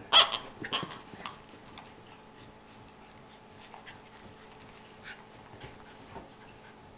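Miniature schnauzer making short, sharp vocal sounds while playing, a quick cluster of them in the first second and a half, then a few fainter ones.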